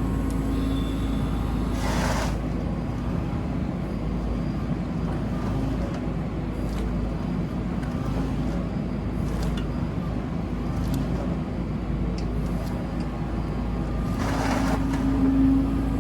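Kobelco SK85 midi excavator's diesel engine running steadily with a constant hum, with a short hiss about two seconds in and a longer one near the end.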